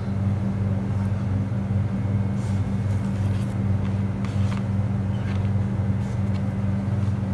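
A steady low hum, like a machine or an electrical appliance running, with a few faint soft taps partway through.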